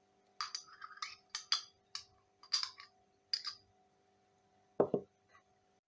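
A metal spoon clinking and scraping against glass in a quick run of light taps as honey is scooped into a cup of tea, then two duller knocks a little before the end.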